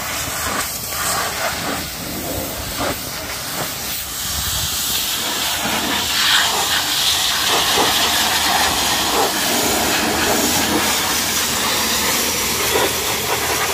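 Pressure-washer jet spraying high-pressure water onto a mud-caked tractor's rear wheel and fender: a steady hiss that grows louder and brighter about four seconds in.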